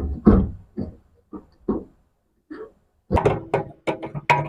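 Irregular knocks and clunks: a few separate knocks in the first two seconds, then a quicker run of taps from about three seconds in.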